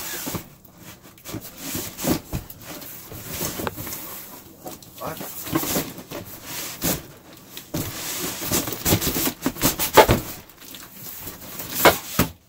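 Large cardboard PC-case box being lifted, turned over and handled: irregular scraping and rustling of cardboard with knocks and bumps. The loudest knocks come about ten seconds in and again near the end.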